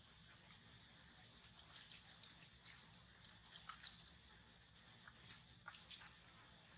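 A monkey chewing food: irregular, crisp little crunches and clicks, in quick clusters.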